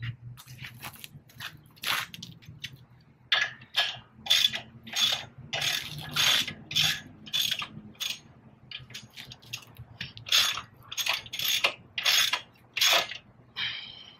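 Metal-on-metal work at a car's front wheel hub and brake rotor: a rapid run of short clicks and scrapes, about two a second, with a brief squeak near the end.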